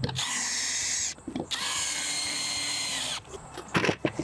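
Cordless drill boring pilot holes into the tabletop through a leg bracket, in two runs of a second or two, each a steady whine. A few sharp knocks near the end as the drill is put down.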